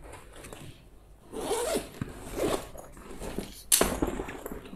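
Zipper on the main compartment of an Eiger Balance 2.0 backpack being pulled open in a few short strokes, the last one sharpest and loudest, about three-quarters of the way in.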